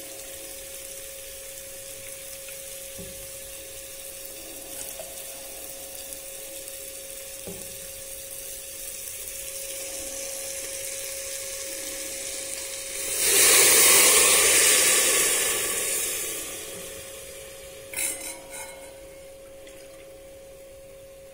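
Onion, potato and soya chunks sizzling in oil in an aluminium pressure cooker. About 13 seconds in, water is poured in and the sizzle flares up loud, then dies away over a few seconds. A few sharp clinks of steel bowls follow near the end.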